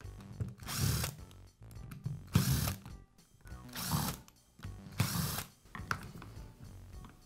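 A screwdriver backing out the screws of a cordless drill's plastic side housing, in four short bursts about a second and a half apart.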